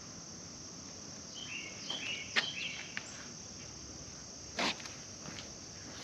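Crickets chirping steadily in the background, with a few short knocks and clicks, the loudest about three-quarters of the way through, and some brief high chirps near the start.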